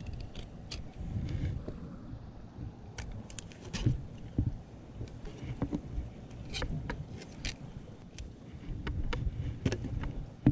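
Fillet knife working through mahi on a cleaning surface: scattered sharp clicks and scrapes, in clusters about three, six and a half and nine and a half seconds in, over a low background rumble.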